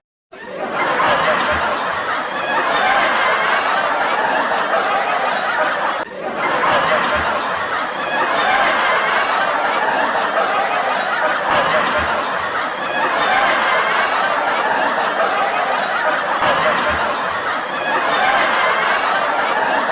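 Crowd laughing continuously, the laughter swelling and easing, with a brief lull about six seconds in.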